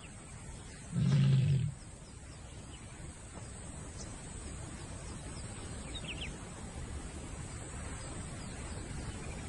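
Lioness giving one short, low call about a second in, then a steady low background noise.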